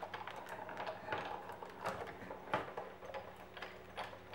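Hand-cranked Fabi die-cutting machine rolling a metal die and paper sandwich through its rollers, with irregular clicks and ticks from the crank and plates.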